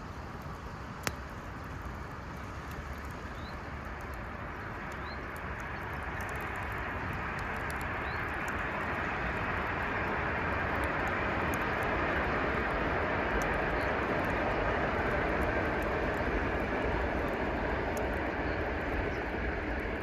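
Beach campfire crackling with scattered small pops and one sharper pop about a second in, over a broad rushing noise that swells gradually and stays loud through the second half.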